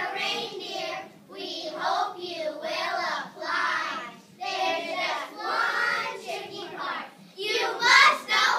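A group of young children voicing a Christmas poem together in unison, in rhythmic phrases about a second long, the loudest phrase near the end.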